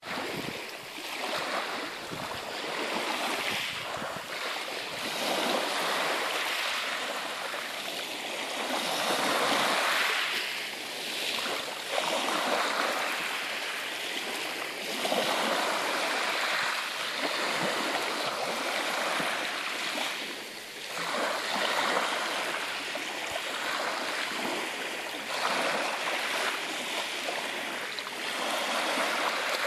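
Sea waves washing onto the shore, a steady rush of water that swells and eases every few seconds.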